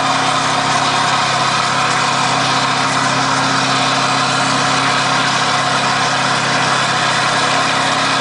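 Scania R580's V8 diesel with a straight-through exhaust running at a steady, unchanging pitch, a loud even drone heard from inside the cab while driving.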